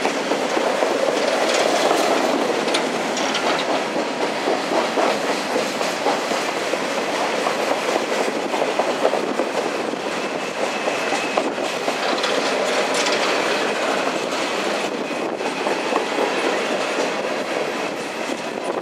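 Empty open-top coal cars of a freight train rolling past on a downgrade: a steady rumble and rattle of steel wheels clicking over the rail joints.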